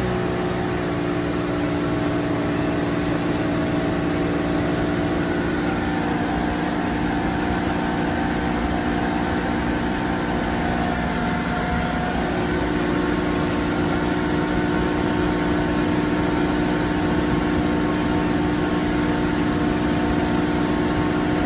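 Mercury 175 hp outboard, fitted with a 200 hp engine computer, running steadily at cruising speed on plane, about 29 mph, with wind and water rush. The engine note holds an even pitch, shifting slightly partway through.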